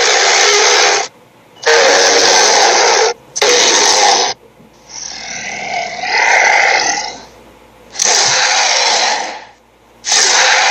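Cartoon Tyrannosaurus sound effects: a string of harsh roars, each a second or so long, with short silences between them. A longer, rougher growl comes in the middle.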